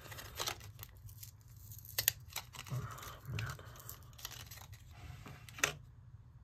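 Blister card of 1620 lithium coin-cell batteries being peeled and torn open by hand: scattered crinkling of plastic and paper with short tearing sounds, and a sharper crackle about two seconds in and another near the end.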